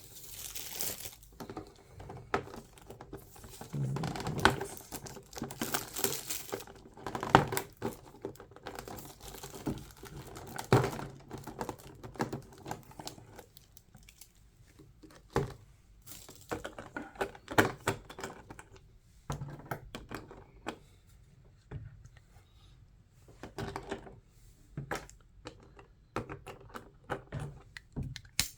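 Model-kit packaging being handled: plastic wrapping and packing material crinkling and tearing, with scattered clicks and light knocks as parts are lifted out of the box.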